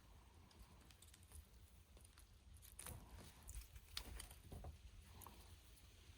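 Near silence, with faint scattered clicks and short soft wet sounds of a knife working on a grouse carcass, a little busier from about three to five seconds in.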